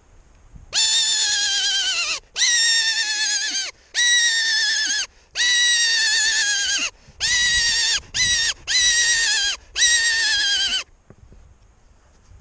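A mouth-blown hunting call (lockpipa) sounded close by in eight long, wavering squeals, each falling in pitch, with brief gaps between them and one shorter squeal near the end of the series.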